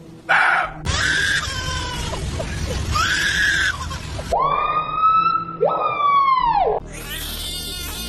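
A run of short clips of different animal calls. The loudest are two long wailing calls in the middle, each rising and then sliding down in pitch like a siren.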